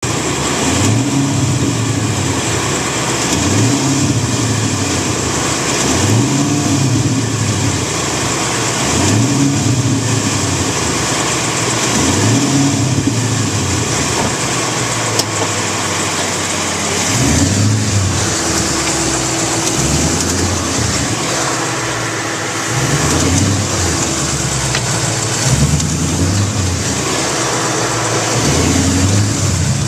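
2011 Ford Mustang's 5.0 V8 engine running and being blipped repeatedly, the revs rising and falling back about every three seconds, then in quicker, shorter blips in the second half. It carries the tick that appeared after an oil change, which a Ford engineer traced to the number 2 main bearings.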